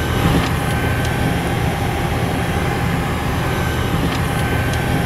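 Steady rush and hum of a parked Boeing 737-800 flight deck's air-conditioning and equipment, with a low rumble, a thin steady whine and a few faint clicks.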